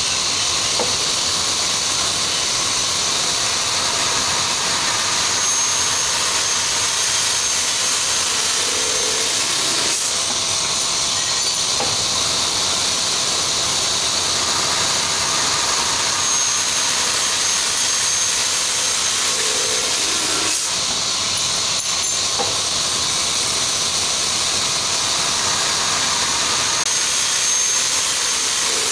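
JIH-I 18DE automatic aluminium cutting saw running through repeated feed-and-cut cycles: a steady loud hiss from the running machine, with a pair of short knocks recurring about every ten seconds.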